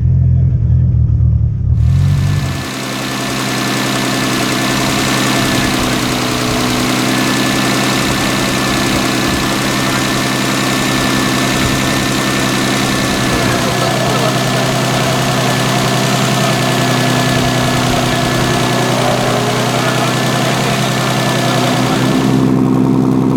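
Toyota Supra's single-turbo 2JZ-GTE straight-six idling steadily, with a thin high tone held over it. It starts abruptly about two seconds in, after a deeper, muffled rumble.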